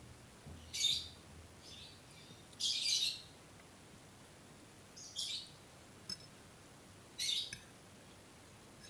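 Eating noises close to the microphone, chewing and slurping fried instant noodles: about five short, hissy bursts at irregular gaps of one to two seconds.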